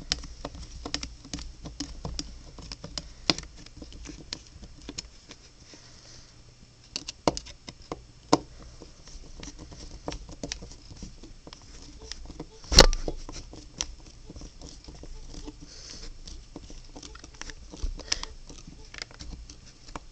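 Small plastic clicks and rattles from a DIY Rubik's-type speedcube being handled while its pieces and center screw are worked on, with one sharp louder knock about two-thirds of the way through.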